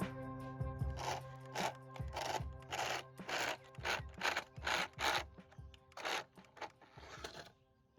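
Background music with steady held tones and a raspy, scraping beat about twice a second, fading out near the end.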